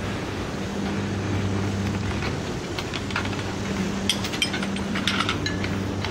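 Grey clay roof tiles clinking and tapping against each other as they are handled and set into mortar, a run of sharp clinks in the second half, over a steady low machine hum.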